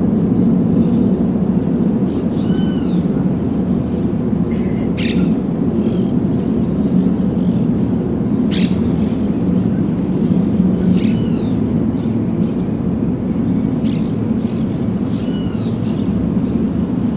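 A steady low rumble like a turbine running in place, holding one pitch with no rise or fall, which the recordist takes for a stationary turbine sound linked to 'the Hum'. Small birds chirp over it several times.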